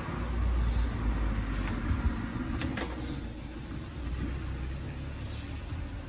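Bosch PHO 2000 electric hand planer running as it is pushed along a wooden board, shaving the surface: a low, steady rumble with a couple of short clicks near the middle.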